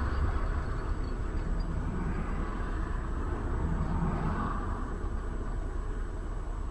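Steady highway traffic noise: tyre and engine rumble of vehicles driving, with a semi-trailer truck passing close alongside.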